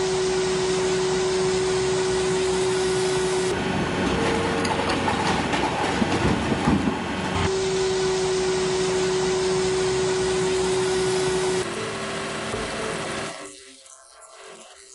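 Firewood processor running: loud, steady machine noise with a constant hum that changes abruptly a few times, then drops much quieter shortly before the end.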